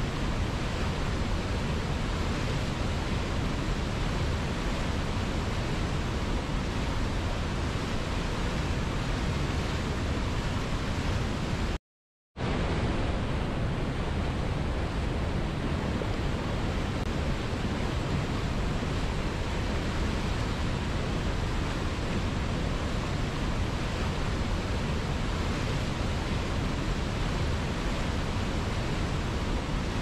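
Whitewater river rapids and a cascade rushing over boulders: a steady, even water noise. It cuts out to silence for about half a second about twelve seconds in.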